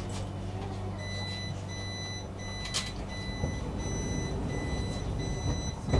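A commuter train's door-closing warning: a high beep sounding on and off about one and a half times a second over the train's steady low hum. It ends in a heavy thump as the sliding doors shut.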